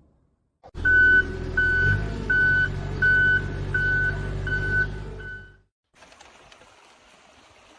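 A vehicle's reversing alarm beeping seven times, about one and a half beeps a second, over the low rumble of a running engine, then cutting off suddenly.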